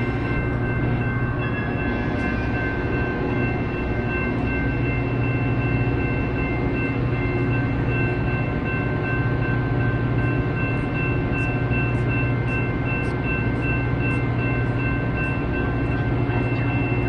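Metra diesel commuter train idling at the platform: a steady low engine hum with several constant high whining tones above it. A faint regular ticking joins about ten seconds in.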